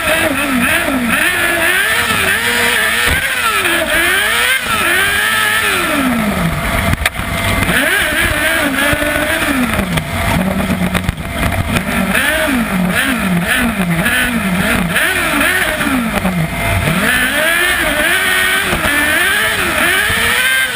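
Kart cross buggy's 600cc Yamaha R6 inline-four motorcycle engine at racing revs, heard on board: the pitch climbs and drops again and again with gear changes and lifts of the throttle.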